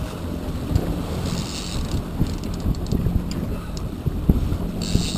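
Wind buffeting the microphone over the steady low hum of a trolling boat's engine, with two short bursts of hiss, about a second in and near the end.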